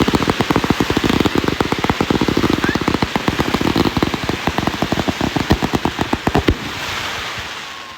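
A string of firecrackers going off in a rapid crackling run, about a dozen bangs a second. It stops about six and a half seconds in and trails off into a fading rush of noise.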